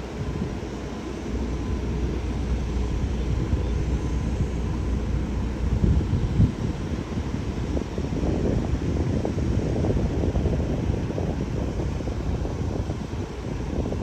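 Steady low rumble of a jet airliner's engines, with wind buffeting the microphone.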